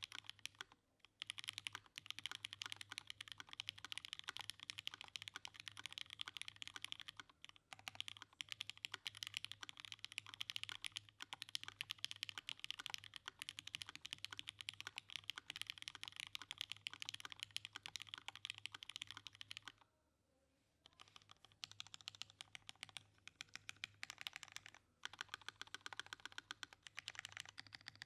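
Fast, continuous typing on a custom DN SBL mechanical keyboard with lubed Cherry MX Red Hyperglide linear switches on a UHMWPE plate and GMK keycaps. The keystrokes come in a dense stream with a few brief pauses, the longest a break of about a second about two-thirds of the way through.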